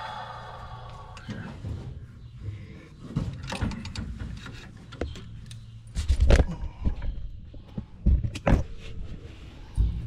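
Irregular clunks, knocks and rattles of someone handling parts and moving about on a combine's metal body, with the heaviest thumps about six and again about eight and a half seconds in.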